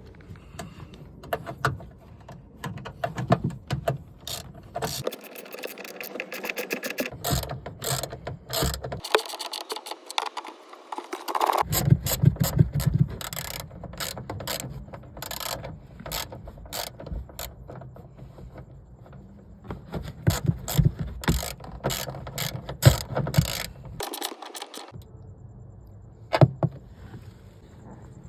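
Hand ratchet clicking, along with irregular clicks and knocks of tools and parts being handled while a tail-light assembly is worked on.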